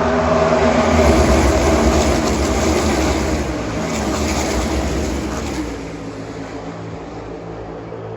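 NASCAR Cup stock cars' V8 engines at full throttle as the field streams past, building about a second in and then fading away over the last few seconds.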